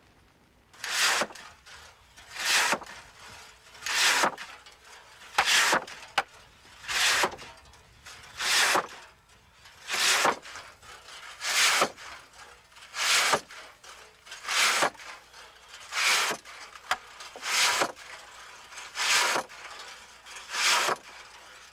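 Two-man pit saw ripping a log lengthwise. There are regular rasping strokes, about fourteen of them, one every second and a half.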